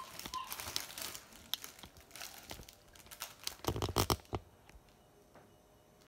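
Thin plastic bag crinkling and rustling under a German Shepherd's paw and muzzle, in irregular short crackles with a louder flurry about four seconds in, then dying away.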